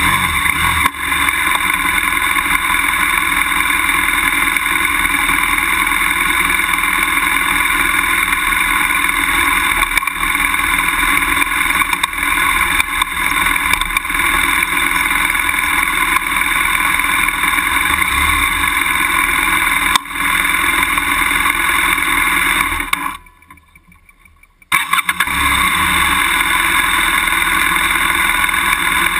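BMW F800GS parallel-twin engine running steadily under load as the motorcycle climbs a steep grassy slope. Near the end the sound drops away abruptly for about two seconds, then comes back.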